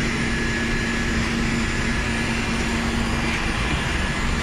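Electric heat gun blowing steadily over tint film on a car's rear windshield, shrinking the film to fit the glass. A low hum in it drops out about three seconds in.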